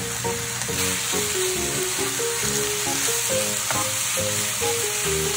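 Cabbage and pork sizzling in a frying pan as they are stir-fried, under light background music.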